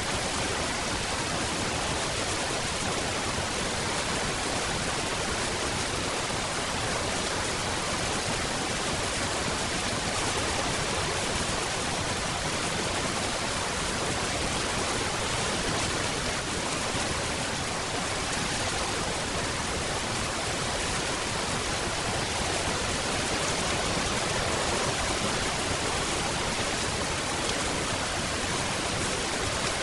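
Steady rain falling, an even hiss with no single loud drops or thunder standing out.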